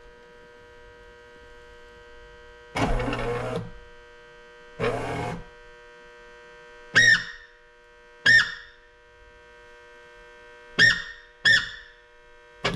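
Background music: a held synthesizer chord with two short noisy swells and four sharp struck notes that ring out.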